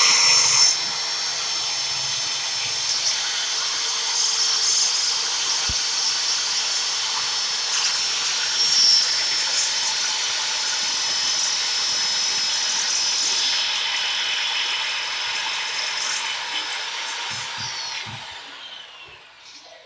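Ultratex electric drill boring a hole into a plastered wall, its motor running with a steady high whine. Near the end the motor slows and winds down.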